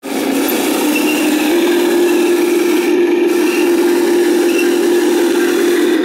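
RC King Tiger tank model driving over dirt: a steady whine from its drive that steps up in pitch twice in the first second and a half, with the tracks rattling under it.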